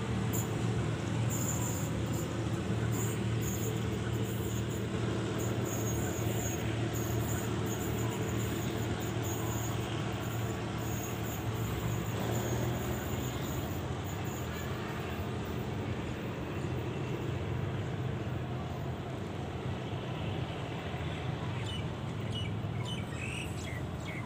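Diesel locomotive engine running at a steady hum that slowly fades. Birds chirp near the end.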